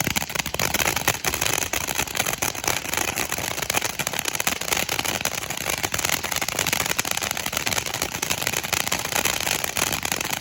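Red Swarm firework fountain spraying, with a pretty strong, dense crackle of rapid pops over a steady hiss.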